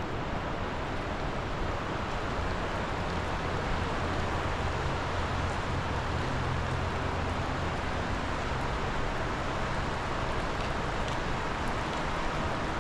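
Steady rushing of a flooded river running high. A low hum swells in the middle and fades again.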